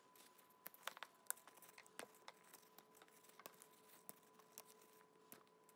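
Faint, scattered small snaps, tearing and rustles as mountain mint leaves are plucked off their stems by hand, with a faint steady tone underneath.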